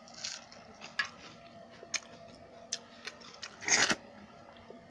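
Close-up mouth sounds of eating by hand: a few short crisp clicks of chewing, then one loud crunch near the end as he bites into a raw onion.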